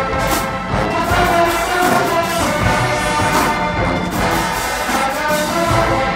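College marching band playing its field show: massed brass holding chords over steady drum-line hits.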